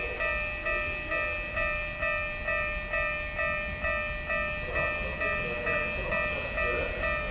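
Railway level-crossing alarm ringing steadily at about two strokes a second, over the low rumble of an approaching Keikyu New 1000 series train.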